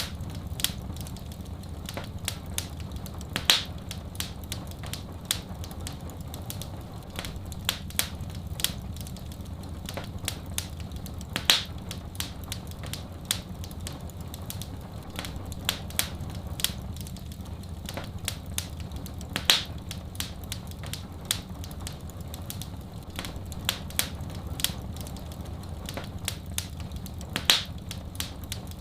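Fireplace fire crackling with many small snaps and a louder pop about every eight seconds, over a steady low rumble.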